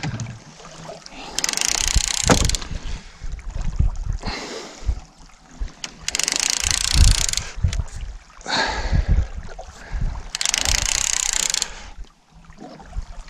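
Fishing reel working in about three short bursts of whirring, each about a second long and a few seconds apart, while a kob is played on the rod, with low knocks and bumps in between.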